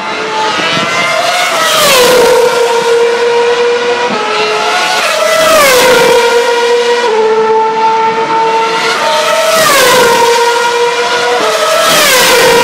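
2012 Formula 1 cars with 2.4-litre V8 engines at high revs, passing one after another at full speed. About four pass-bys, each a high-pitched engine note that rises in loudness and then drops sharply in pitch as the car goes by.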